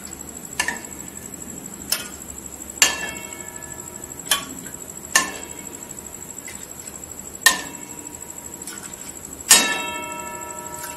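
Steel ladle clinking against a steel kadhai and bowl while milk is scooped and poured, about seven separate clinks at irregular intervals, some leaving a short metallic ring; the loudest clink, near the end, rings longest.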